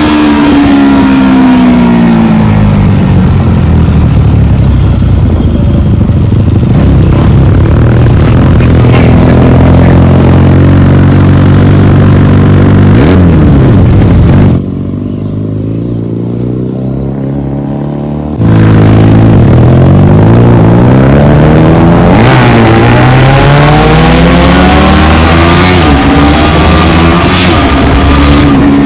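Motorcycle with a loud aftermarket exhaust, accelerating hard through the gears. The engine pitch climbs and drops back repeatedly. The sound goes muffled for a few seconds about halfway through.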